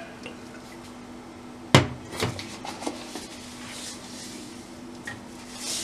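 Kitchen utensils and containers being handled: one sharp knock about two seconds in, then a few light clicks, over a faint steady hum.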